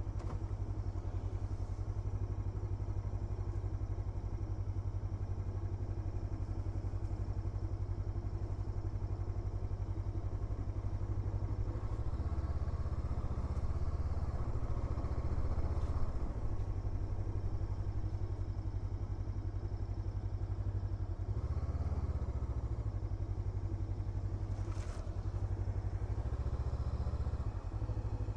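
Hunter Maverick 500cc motorcycle engine running at low speed, a steady low throb that swells twice with the throttle, about halfway through and again a few seconds later.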